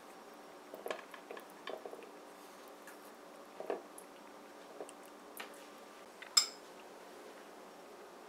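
Soft, scattered taps and squishes as canned pineapple slices are pressed into a metal bundt pan, then one sharp metallic clink of a spoon with a brief ring about six seconds in.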